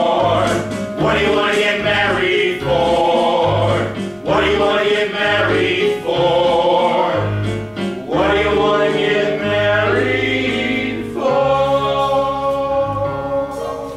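A men's ensemble sings in harmony over live keyboard and band accompaniment, with bass notes under the voices. A long held chord comes near the end and starts to fade.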